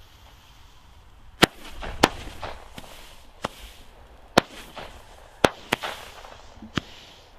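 Small consumer fountain-and-battery firework going off, with about seven sharp bangs at uneven intervals of roughly a second and a hiss between the shots.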